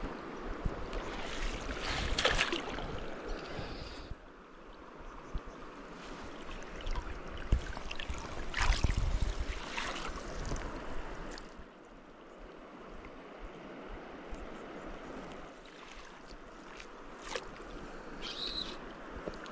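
Shallow river running over a rocky bed, a steady rush of flowing water, with louder stretches about two seconds in and again around nine seconds in.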